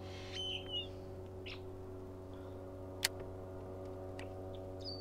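Steady low hum with several even pitch lines. A short whistled bird call that bends up and curls comes about half a second in, and a brief high note near the end. A single sharp click about three seconds in.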